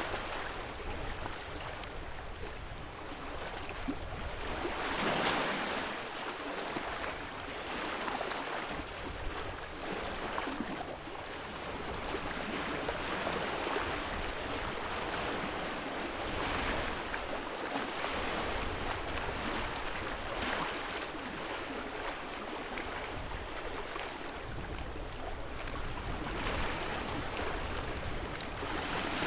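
Lake waves lapping and washing ashore, swelling every few seconds, over a steady low rumble.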